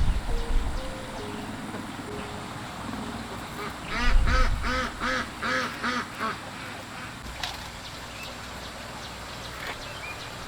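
A duck quacking: a run of about seven quacks, roughly three a second, lasting a couple of seconds. Low rumbling bumps come near the start.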